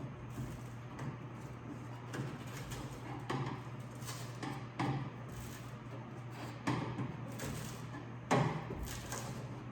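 Interior trim panel of a 1968 Ford F250 door being pried loose with a screwdriver and fingers, breaking its sealant: irregular knocks, scrapes and rattles of the panel against the door, over a steady low hum.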